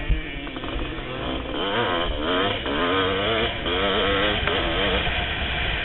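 1988 Kawasaki KX500's two-stroke single-cylinder engine revving under racing load, its pitch rising and falling as the throttle is worked, with wind rumble on the helmet-mounted microphone. A sharp thump right at the start.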